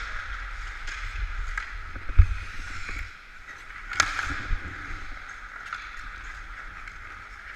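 Ice skates scraping and carving on the rink with wind rumbling on a player-worn camera's microphone. There is a low thump about two seconds in and a sharp hockey stick or puck clack about four seconds in.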